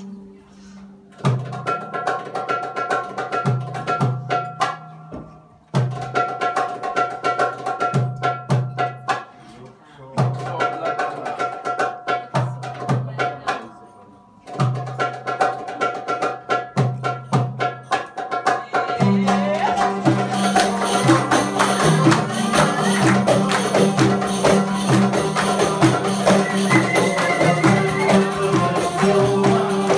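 A small live Arabic cabaret ensemble with oud and violin plays dance music. For about the first two thirds it goes in phrases of sharp percussive strokes over held notes, each separated by a short pause. Then the full band comes in and plays on without a break.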